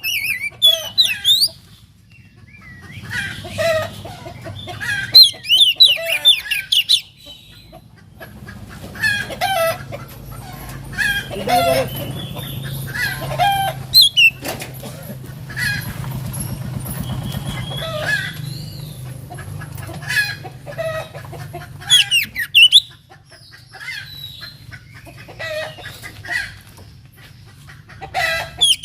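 Oriental magpie-robin (kacer) singing: bursts of rapid, varied chirps and whistles with short pauses between phrases, over a steady low hum.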